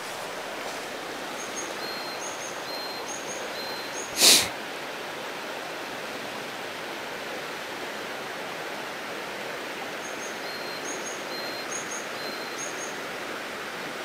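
Steady rush of a mountain stream's shallow current. A small bird sings short, high, repeated phrases in two spells, and one sharp knock sounds about four seconds in.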